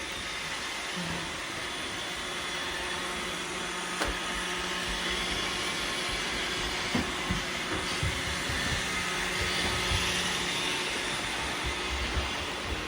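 Roomba robot vacuum cleaners running steadily, with a whirring hum of motor and brushes and a few light knocks.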